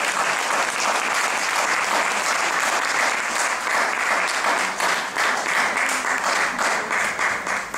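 Audience applauding steadily at the end of a dance performance, the clapping getting a little sparser near the end.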